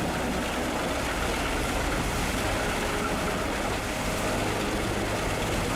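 Large tractor-driven wood chipper at work: a steady, dense mechanical noise of engine and chipping with no clear pauses.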